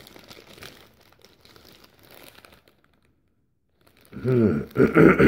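Thin plastic sample bag crinkling faintly as it is handled and opened, stopping after about two and a half seconds. A man's voice comes in near the end.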